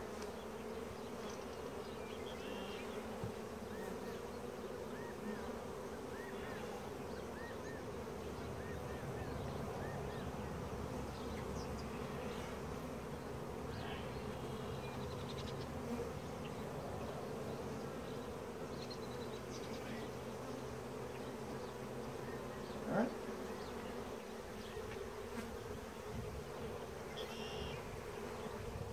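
Honey bees from an opened hive buzzing in a steady, dense hum. One short knock about three-quarters of the way through.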